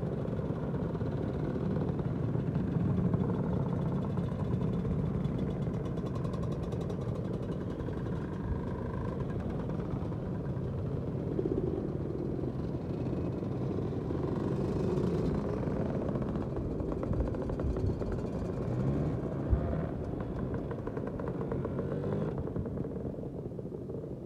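A procession of classic two-stroke Lambretta and Vespa scooters riding past one after another at low speed, their small engines running together. The traffic thins out near the end.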